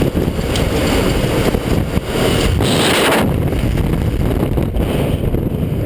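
Aircraft engine drone and rushing air at an open jump door, then a burst of slipstream about two and a half seconds in as the parachutist leaves the aircraft, followed by heavy wind buffeting on the helmet camera's microphone during the fall.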